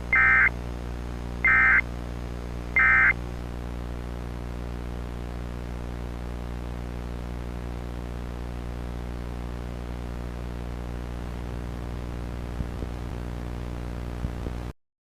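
Three short bursts of EAS SAME digital data tones, the end-of-message signal, each a buzzy screech about a second apart. A steady low hum follows and cuts off abruptly near the end.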